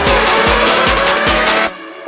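Electronic background music with a steady beat and a slowly rising tone, cutting out sharply near the end.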